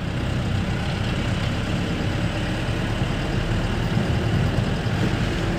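Engine and road noise heard from inside the cab of a moving vehicle: a steady, even drone.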